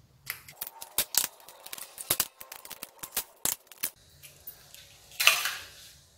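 Eggs being cracked one after another on a stainless steel mixing bowl: a run of sharp cracks and shell clicks, then a short louder noise about five seconds in.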